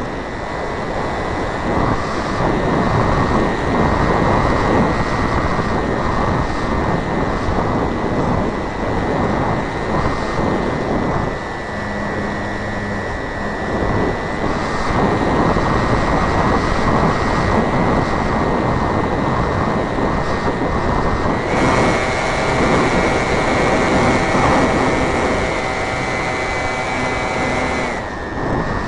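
Onboard sound of a Robbe Cessna Cardinal radio-controlled model airplane in flight: its motor and propeller run with a steady high whine over a heavy rush of wind on the camera microphone. The whine steps up in pitch about 21 seconds in and drops back near the end.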